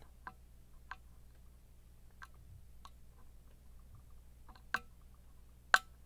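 Small sharp clicks of a hook pick working the pins inside a Winkhaus keyTec X-tra high-pin-count cylinder lock, scattered about a second apart. The two sharpest come near the end, taken for a little click from the bottom-left fifth pin as it is lifted.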